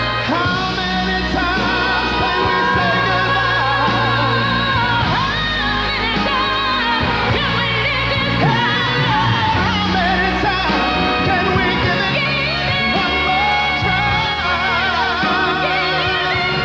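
Pop song performed live: a singer's vocal lines, with long notes held in vibrato, over band accompaniment.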